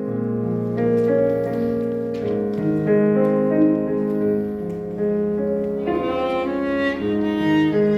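Small amateur ensemble playing instrumental music, with bowed strings and piano holding long, overlapping notes.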